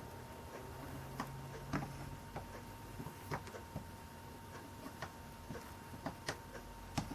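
Small irregular clicks and pops from soldering stained glass: a hot soldering iron working solder and flux along the lead came, about a dozen uneven ticks with the loudest near the end. A faint steady hum lies under them.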